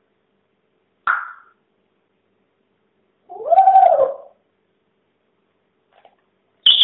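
African grey parrot calling: a short call about a second in, a longer call that rises and falls in pitch in the middle, and a sharp high whistle near the end.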